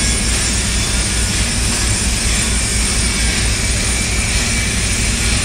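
Steady, loud mechanical drone of heavy machinery running, a constant rushing noise over a throbbing low rumble.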